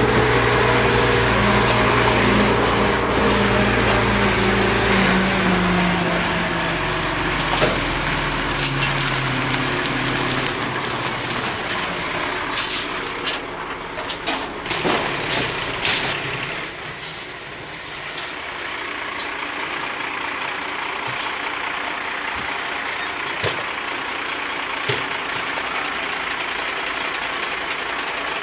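Rear-loader garbage truck with its engine running, the engine pitch dropping about a third of the way in. A cluster of clanks and knocks comes around halfway, then a steady hiss.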